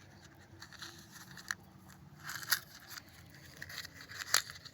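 Small objects handled by hand: scattered light clicks and rustles, the sharpest about a second and a half in and again near the end.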